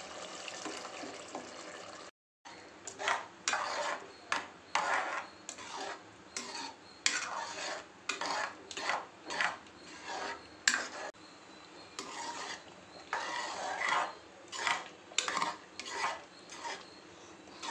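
A metal ladle stirring thick cooked toor dal into a brinjal gravy in an aluminium pressure-cooker pot, scraping the pot in repeated strokes about one to two a second. There is a brief silent gap about two seconds in, before the stirring starts.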